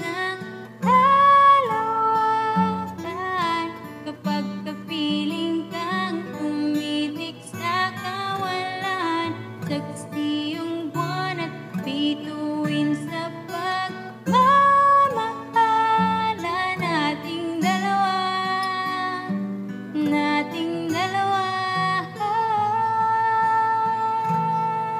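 A woman singing a slow song over acoustic guitar accompaniment, holding one long note near the end.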